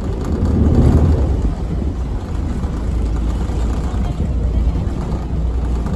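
Steady low rumble of a CityCat catamaran ferry under way, engine drone mixed with wind and water noise on its open rear deck; it swells about a second in, then holds steady.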